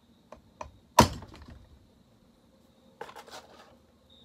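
Metal hand tools knocking on a chainsaw piston while trying to drive out its wrist pin: two light clicks, one sharp ringing strike about a second in, and a quick rattle of smaller knocks about three seconds in. The pin is not coming out, a one-way pin that must be pushed out one side.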